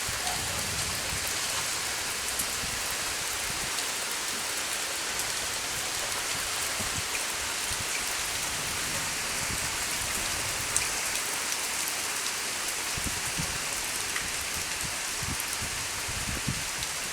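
Heavy rain falling steadily, pounding the ground and a porch, with scattered heavier drops knocking now and then.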